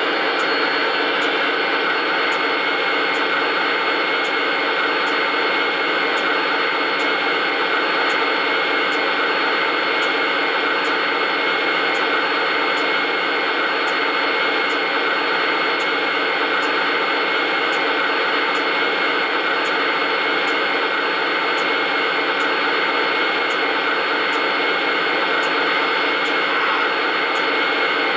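Steady running noise from an O scale model train, with a faint tick repeating a bit faster than once a second.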